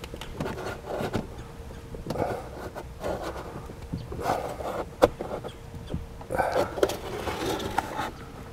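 Plastic trim stick prying at the bottom edge of a 2015 Jeep Grand Cherokee's door trim panel: scattered clicks, creaks and scraping, with a sharp click about one second in and another about five seconds in, as the tight retaining clips hold.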